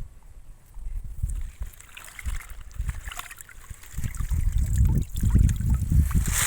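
Water sloshing and splashing in shallow field water as fish are being caught by hand, with heavy low rumbles on the microphone that grow louder over the last couple of seconds.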